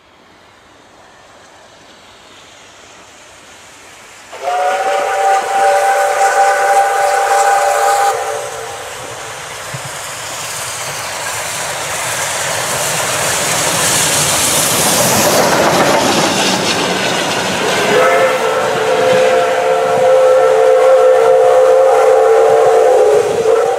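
Steam locomotive with its hiss building, sounding a multi-note chime whistle in two long blasts: one of about four seconds, then, after a surge of steam hiss in the middle, a second of about five seconds pitched a little lower.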